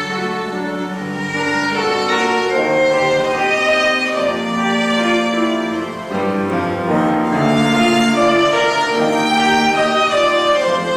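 Piano trio playing classical music: violin and cello bowing sustained melodic lines over piano, with a brief easing of the sound about six seconds in.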